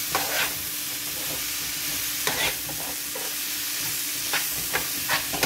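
Tripe and onion sizzling in a frying pan while a spatula stirs them, scraping across the pan several times.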